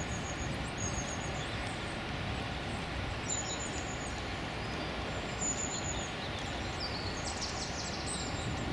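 A steady low rumble of distant traffic, with short high-pitched calls of small birds every second or two.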